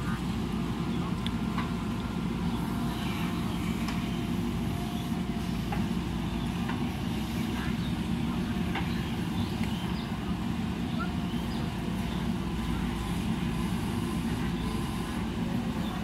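Diesel engine of a JCB 3DX backhoe loader running steadily under load as the rear bucket digs a trench, with scattered small clicks and knocks.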